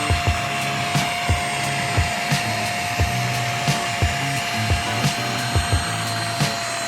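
PerySmith V10 handheld dust mite vacuum cleaner running steadily, its motor giving a constant whine over a hiss of rushing air, cutting off at the end. Background music with a steady beat plays under it.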